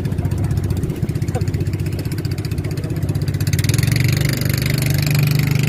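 Outrigger fishing boat's engine running steadily, growing louder about three and a half seconds in.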